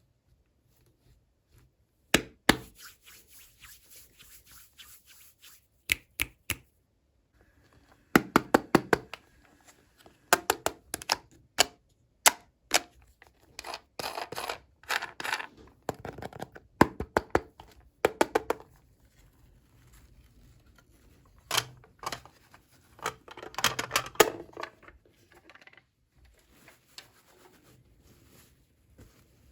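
Hands handling small plastic toys and packaging: irregular sharp clicks and taps, some in quick flurries, with short pauses between.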